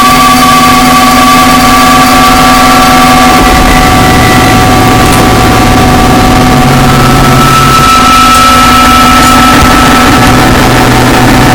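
Harsh noise music: a dense, distorted wall of noise, constantly loud, with several steady droning tones. The low layer shifts about three and a half seconds in, and a new low drone comes and goes.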